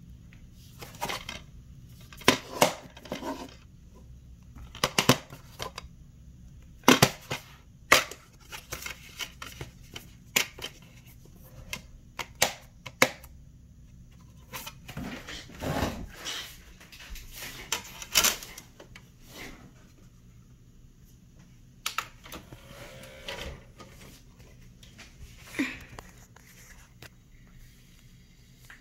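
Plastic DVD case being handled and opened and the disc worked off its centre hub: a run of irregular sharp clicks and clacks, with a few louder snaps and some rustling between them.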